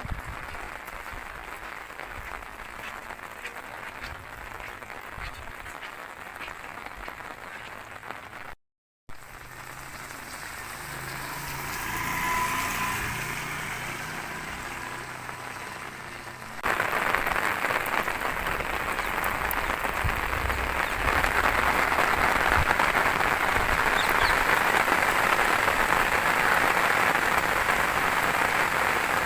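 Rain falling steadily, an even hiss. It cuts out for a moment about a third of the way in, then turns abruptly louder a little past halfway.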